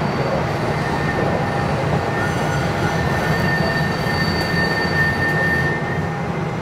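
A light rail train car running along the track, heard from a seat inside: a steady low rumble, with a thin, high, steady tone from about two seconds in until near the end.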